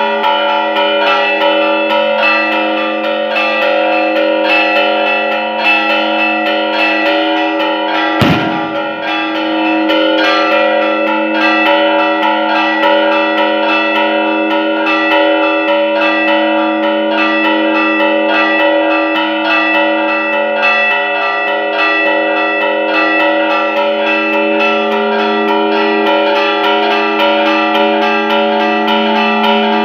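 Church bells rung by hand in a rapid repique, the strikes coming fast and overlapping so the ringing never dies away. A single loud thump sounds about eight seconds in.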